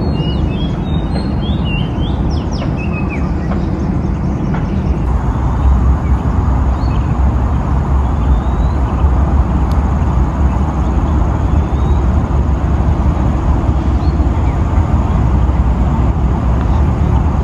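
Outdoor background of a steady low rumble, with birds chirping during the first three seconds.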